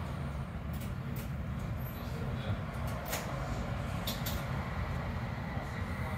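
Inside a Duewag GT8N articulated tram on the move: a steady low rumble of the tram running, with a few short clicks and rattles.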